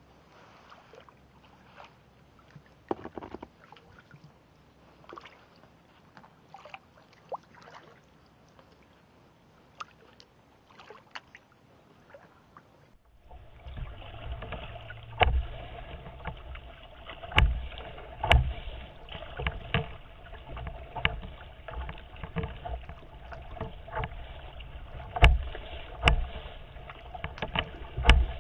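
Kayak hull moving through choppy lake water: water lapping and slapping against the hull, with irregular sharp knocks. Quiet with scattered clicks at first, then after about thirteen seconds suddenly louder, with frequent hard slaps and thumps.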